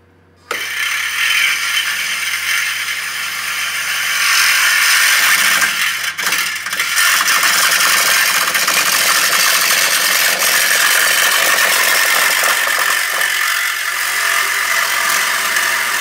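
Reciprocating saw cutting through an Audi SQ5's steel exhaust pipe to take off the factory tip: a loud, steady, rattling cut that starts about half a second in and gets louder about four seconds in, with a brief dip near six seconds.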